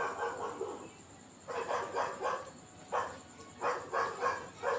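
A dog barking repeatedly in a run of short barks, with a brief pause about a second in.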